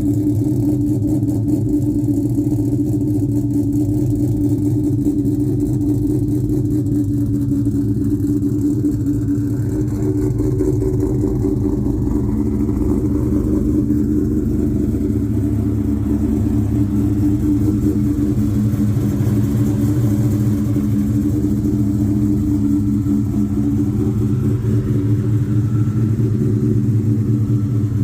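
2001 Ford Mustang SVT Cobra's V8 idling steadily and loudly, with no revs.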